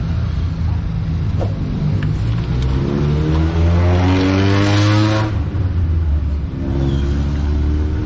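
Road traffic engine noise: a steady low rumble, with one engine rising in pitch as it accelerates for a couple of seconds midway. Near the end, another engine runs at a steady pitch.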